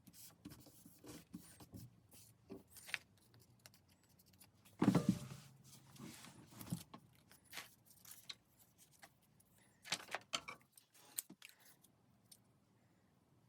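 Light clicks, taps and rustles of small objects and paper being handled, with a louder rustling clatter about five seconds in and another run of clicks near the ten-second mark.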